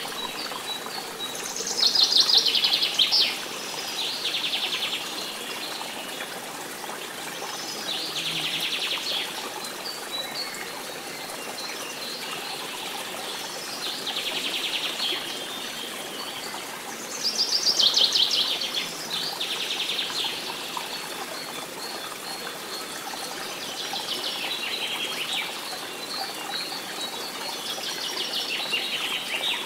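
Birdsong: short trilled phrases that come every few seconds, over a steady background of trickling water.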